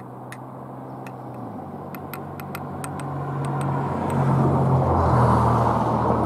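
A motor vehicle passing on a nearby road: its engine hum and tyre noise grow steadily louder, peak about five seconds in as it goes by, and the engine note drops in pitch as it passes.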